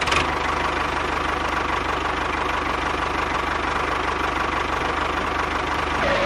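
Small motor running steadily with a fast, even chugging beat, cut in and out abruptly.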